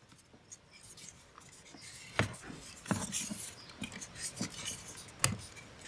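Plastic pull-handle cover on a Toyota Highlander rear door trim panel being handled and snapped into place by hand: several sharp plastic clicks with some scraping and rubbing in between.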